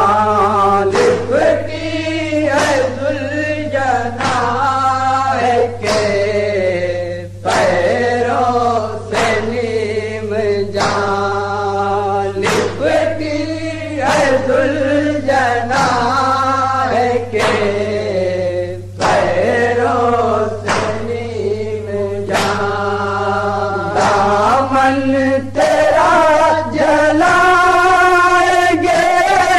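Male voices chanting a nauha, an Urdu mourning lament, in chorus, the singing held on long bending notes. A regular beat of sharp strikes runs under the voices, with a steady low hum beneath.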